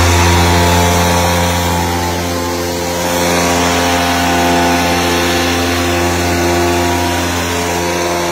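Backpack power sprayer's small petrol engine running steadily at a constant speed, a loud even hum with a buzzy edge.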